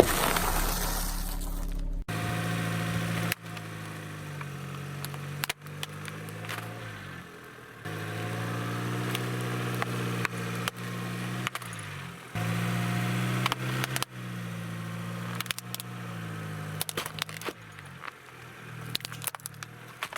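Car engine running at low speed in a series of short clips, its hum shifting in pitch now and then, with scattered small cracks and clicks as the tyre rolls over objects.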